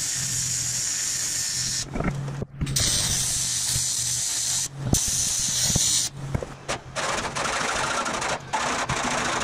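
AC TIG welding arc on aluminum, fusing a 3/8" aluminum rod to the edge of the sheet-aluminum body: a steady buzzing hiss with a low hum. The arc breaks off briefly and restarts a few times.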